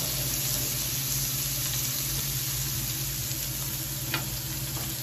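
Carrot slices sizzling steadily in a hot grill pan over a low steady hum. Metal tongs click once against the pan about four seconds in as the carrots are turned.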